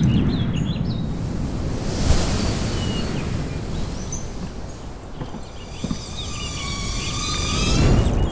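Rushing air noise that swells and fades as the drone sweeps low over the rooftops, with birds chirping. In the last few seconds a thin whine joins in, several pitches layered one above another.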